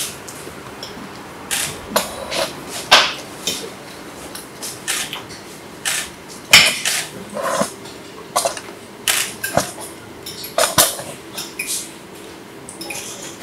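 Metal forks clinking and scraping against ceramic plates as two people eat noodles, in irregular short clicks and scrapes with a few brief pauses.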